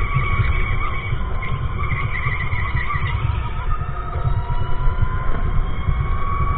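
Electric go-kart driven at speed: the whine of its electric motor slowly rising and falling in pitch with speed, over a heavy low rumble.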